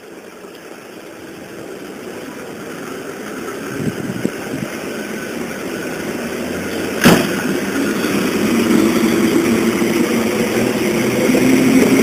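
SKM electric commuter train pulling out and passing close by, its running noise growing steadily louder. A sharp knock comes about seven seconds in, and a steady hum comes in after it.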